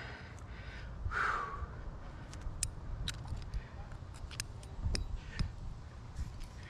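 Scattered light clicks and clinks of climbing hardware knocking on a trad rack as the climber moves, with a short breathy vocal sound about a second in.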